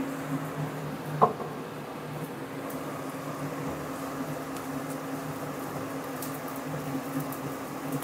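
Steady hum of a kitchen range hood fan over food frying in a pan on a gas stove. There is one sharp clack of crockery or a utensil about a second in.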